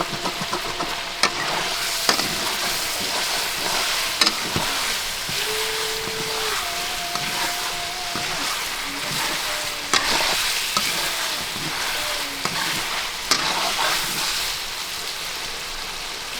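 Chicken pieces sizzling in hot oil in a pan while being stirred, with a steady frying hiss and sharp clicks of the stirring utensil against the pan every second or two.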